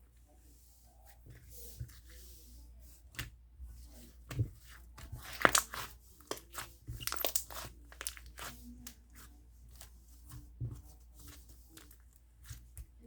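Slime being squished and stretched by hand, giving irregular sticky clicks and small pops, loudest and densest a little past the middle.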